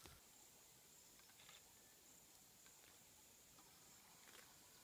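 Near silence: faint outdoor ambience with a thin, steady high-pitched tone and a few faint ticks.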